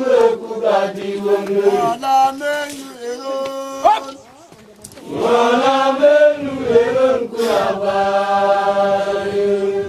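Group of men chanting together in long held notes over a steady low drone note. The chant dies down briefly about four seconds in, then comes back.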